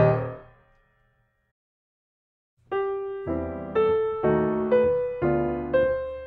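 Background piano music: a phrase ends and rings away, there is a short silence of about two seconds, and then a new, gentle piano passage begins with evenly paced notes.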